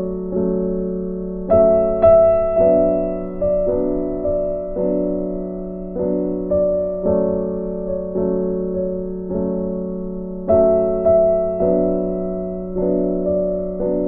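Slow, gentle piano background music: struck notes about every half second to second, each dying away, over a steady low held tone. The notes come louder about a second and a half in and again near ten seconds.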